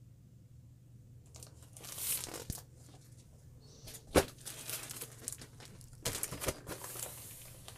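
Plastic-wrapped cross-stitch kit packages rustling and crinkling as they are handled and swapped, with a sharp tap about four seconds in.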